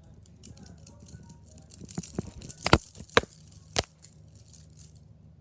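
Fidget bracelet being worked in the hands to make noises: a run of small clicks and crackles, then three sharp, loud clicks about half a second apart a little past the middle.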